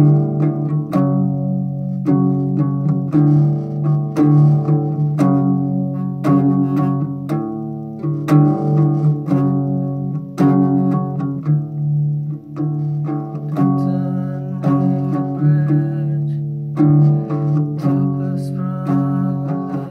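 Slow instrumental music on a plucked string instrument, most like acoustic guitar: chords struck about once a second and left to ring, with no singing.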